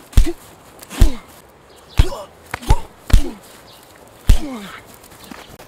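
Punch impact sound effects: five heavy thuds about a second apart, each followed by a short grunt that falls in pitch.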